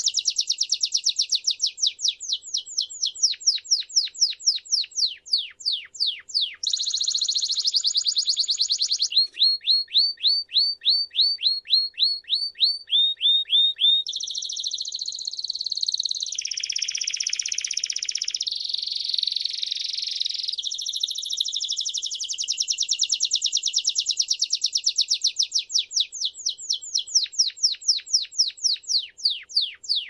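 Timbrado canary singing without a break, phrase after phrase. Its song moves through runs of quick downward-sweeping notes that slow toward the end of each run, a fast trill, a row of evenly spaced single notes about three a second, and a dense rolling passage in the middle.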